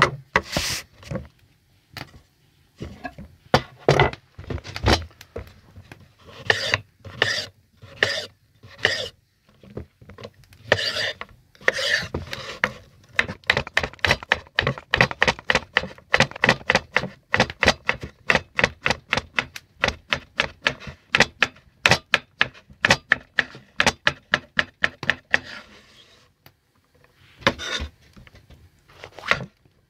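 Kitchen knife chopping salad vegetables on a wooden cutting board. It starts with scattered cuts and scrapes, then a fast, even run of chops for about ten seconds through the middle.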